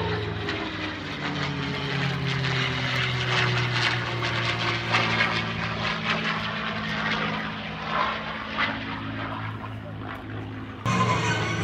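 Propeller airplane's piston engine running in flight as it passes, its pitch falling slowly; the sound steps up suddenly near the end.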